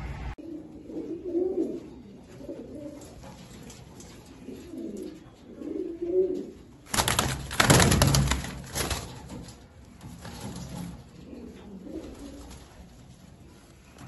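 Domestic pigeons cooing: low warbling coos repeating through the first six seconds, then fainter again later. About seven seconds in, a loud burst of rustling and clattering lasts about two seconds.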